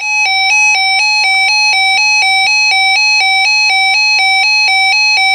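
Electronic two-tone alert signal: a loud buzzy tone switching back and forth between a high and a low pitch about four times a second, announcing a weather warning broadcast.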